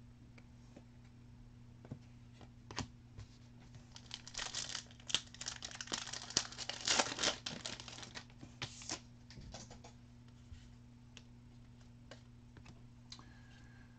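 Foil trading-card pack wrapper crinkling and tearing as a pack is opened, a dense run of crackles for about five seconds in the middle, with scattered light clicks of cards being handled before and after.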